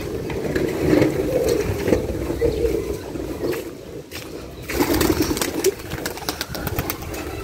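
Domestic pigeons cooing in low, repeated murmurs, with wind rumbling on the microphone. About five seconds in comes a quick run of light taps or rustles.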